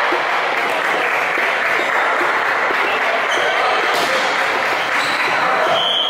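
Steady echoing din of many voices calling out and chattering in a sports hall, with a few sharp thuds of a ball bouncing on the wooden floor.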